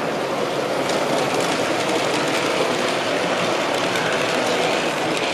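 Model trains running on a layout: a steady rumble of wheels on track with a few faint clicks, under the general background noise of an exhibition hall.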